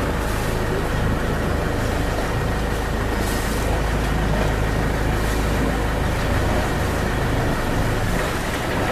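Boat engine running steadily: a constant low drone with no letup.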